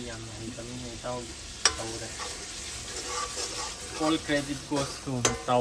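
Curry sizzling in a steel kadai on a gas burner while a metal ladle stirs it. There is a sharp clink of the ladle against the pan about one and a half seconds in, and another near the end.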